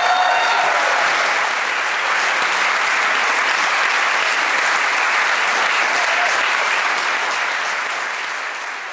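Theatre audience applauding steadily, with a voice calling out briefly at the start; the applause fades away near the end.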